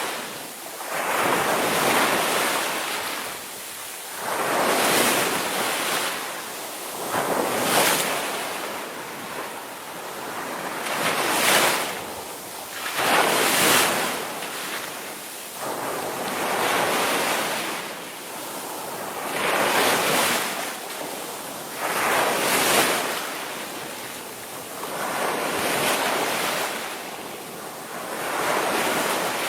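Ocean surf: waves breaking and washing in, in repeated surges of rushing noise that swell and fade about every two to three seconds.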